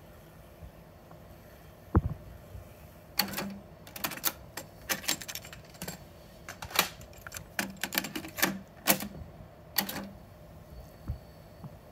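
Cassette deck door and plastic cassettes being handled: a low thump about two seconds in, then a run of sharp plastic clicks and clacks as one cassette is taken out of the opened tape door of a Technics RS-B85 deck and another is put in and the door closed, with one more light click near the end.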